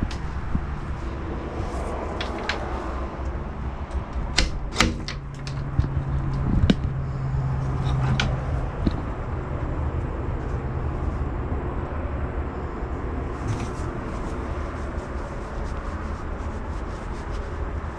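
Steady low vehicle road rumble, as heard inside a moving vehicle, with a cluster of sharp clicks and knocks in the first half.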